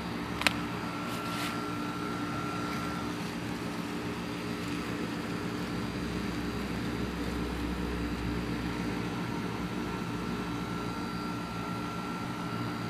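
A steady engine-like drone running in the background, swelling a little in the low end midway, with a single sharp click about half a second in.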